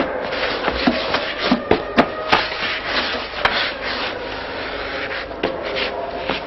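Harsh rasping, scraping noise broken by irregular sharp knocks and clicks, over a faint held tone.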